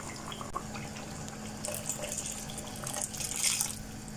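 Water poured into a pan of salsa, splashing in twice: briefly a little before two seconds in, then more strongly around three seconds in.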